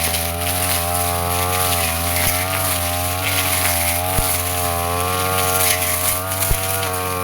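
Brush cutter engine running steadily, its pitch dipping and recovering slightly as the blade cuts through grass and brush, with a few sharp ticks.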